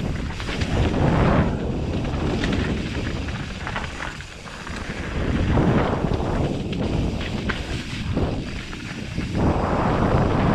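Mountain bike rolling downhill over dirt and loose rock: tyres crunching on gravel and the bike rattling and knocking over stones, with wind rumbling on the microphone.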